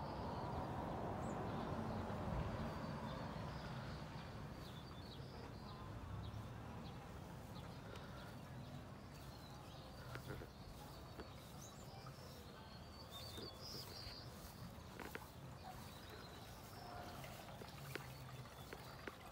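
Faint outdoor backyard ambience with small birds chirping now and then over a low rumble that is loudest in the first few seconds.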